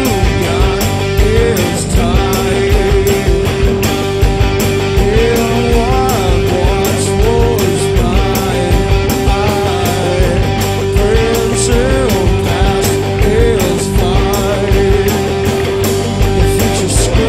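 Live rock band playing an instrumental stretch: a lead line holds one note and repeatedly bends up to a higher one, over steady drum hits and bass.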